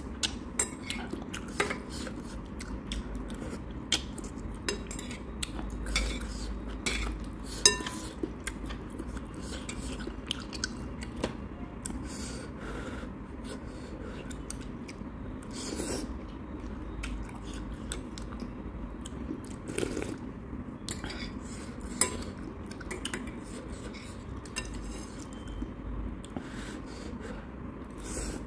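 Metal chopsticks and a metal spoon clinking and tapping against a ceramic bowl at irregular intervals, with a few sharper clinks. Quieter chewing of noodles comes between the clinks.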